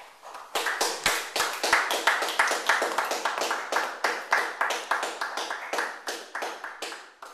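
Applause from a small audience, with individual hand claps distinct. It starts about half a second in and thins out near the end.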